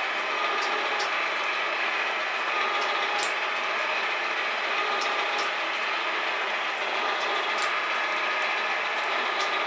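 Metal shaper running and taking a cut across a salvaged conveyor drive roller. It makes a steady mechanical clatter, with a sharp tick every couple of seconds as the ram strokes.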